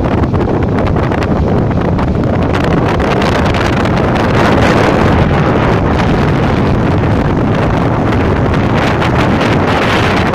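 Wind buffeting the microphone over the steady rush of muddy floodwater flowing across the ground.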